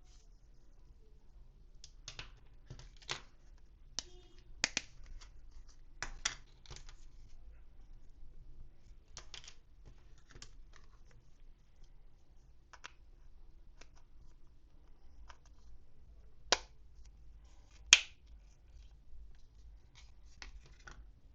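Sparse clicks, snips and light scratches of hands handling toy packaging and small plastic accessories, with two sharper clicks near the end.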